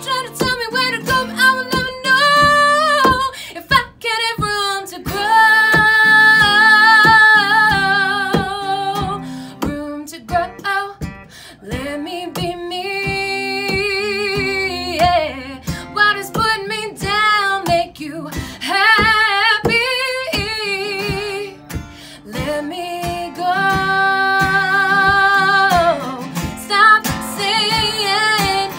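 A woman singing long held notes with vibrato, to her own strummed acoustic guitar.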